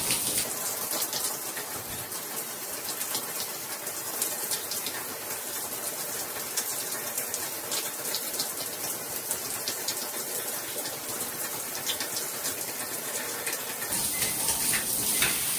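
Water from a ReFa Fine Bubble S shower head spraying steadily onto a hand and the tiled wall: a continuous hiss of spray with many small splash ticks.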